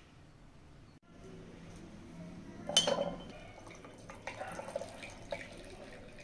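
Freshly blended beetroot juice being poured and dripping, with one sharp clink about three seconds in and scattered light taps and drips after it.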